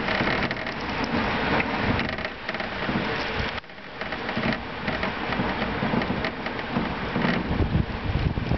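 Heavy wind-driven rain of a thunderstorm, with gusts buffeting the microphone. The noise drops sharply about three and a half seconds in, then builds back up.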